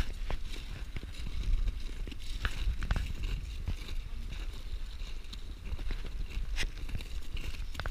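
Footsteps crunching on glacier ice, with scattered clicks, over a low rumble of wind on the microphone.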